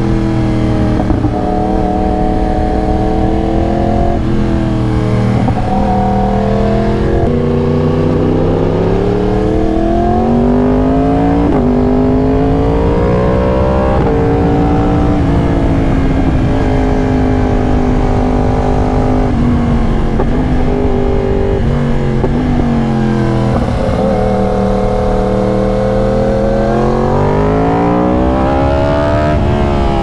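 2022 Yamaha R1's crossplane inline-four running through an SC-Project exhaust under way. The revs climb and drop repeatedly with abrupt breaks between gears, hold fairly steady through the middle, then climb again near the end.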